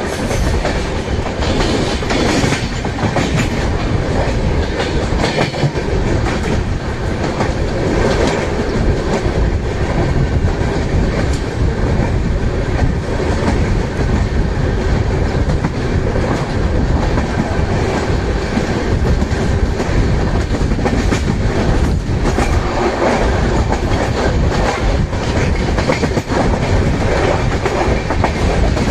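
12164 Chennai–LTT Superfast Express running through the station without stopping: a loud, steady rumble from the passing train, with rapid clicks as its wheels cross the rail joints.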